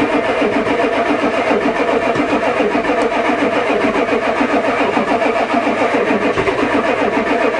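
Ford diesel truck engine cranking over on its starter in a cold-start attempt, an even, steady pulsing that does not catch and run. The owner suspects the new glow plug controller is not heating the plugs, since it never clicks.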